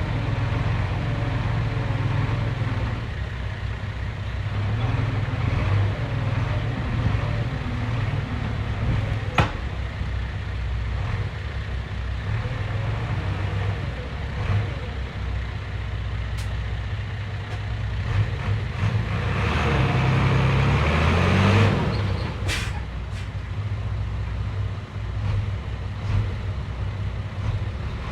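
Heavy diesel engine of earthmoving equipment running steadily, revving up about two-thirds of the way through. A few sharp knocks come just after the rev.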